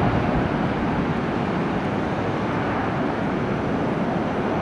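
Jet engine noise from a Boeing 737-800's CFM56-7B engines as the airliner flies away on final approach after passing low overhead: a steady rumbling rush.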